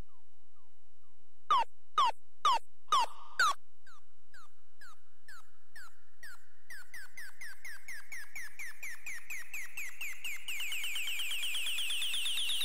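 Electronic dance build-up: short pitched snare hits, at first about two a second, then a snare roll that speeds up and rises steadily in pitch toward the end.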